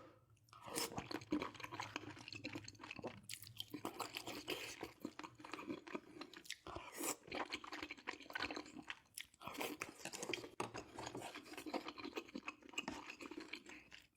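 Close-up chewing of a mouthful of beef-intestine stew: a dense run of mouth clicks and smacks, with short pauses about three, six and a half, and nine seconds in.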